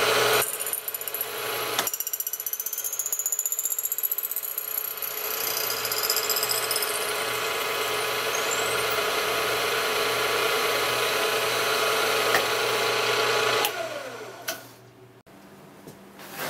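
End mill cutting an aluminum block, the machine running steadily with a high whine over the cutting noise. About three-quarters of the way through the motor is switched off and spins down with a falling pitch, and a few light clicks follow.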